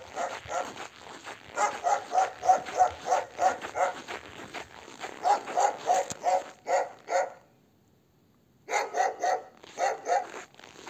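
A dog barking rapidly and over and over, three or four barks a second, with a break of about a second two-thirds of the way through.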